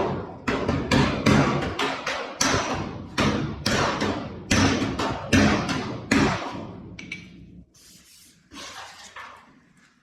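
Body hammer striking a sheet-steel car body panel in a steady run of blows, about two and a half a second, that stops about six seconds in: metal being bumped to raise a low spot.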